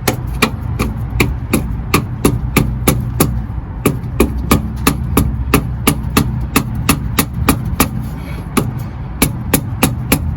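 Hammer striking a flathead screwdriver driven into a stuck oil filter, sharp metallic blows at about three a second with a couple of brief pauses: trying to turn loose a filter that was over-tightened.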